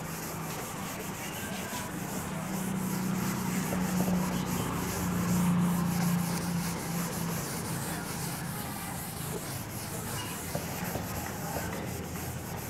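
A whiteboard being wiped clean by hand: continuous rubbing strokes across the board's surface, loudest in the first half, with a low hum underneath.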